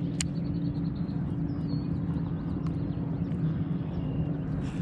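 Steady low drone of outboard boat motors running on the lake.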